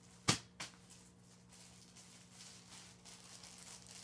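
A sharp knock about a third of a second in and a softer one just after, then faint rustling of plastic-bagged shirts being handled.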